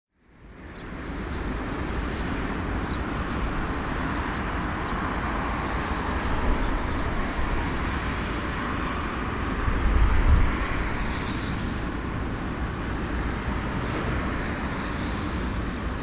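Steady rumbling vehicle noise that fades in over the first second, swells louder briefly about ten seconds in, then settles back.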